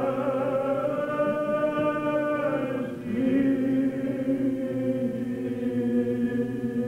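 Church choir chanting in long held notes, moving to a new note about three seconds in.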